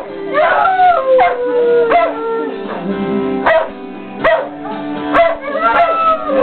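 Dalmatians howling along with a TV theme song: long howls that slide down in pitch, over the music's held chords and beat.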